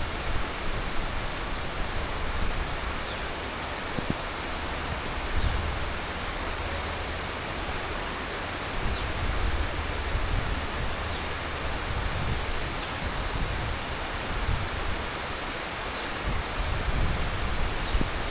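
Heavy tropical monsoon rain falling steadily: a dense, even hiss of rain with a low rumble underneath that swells and fades.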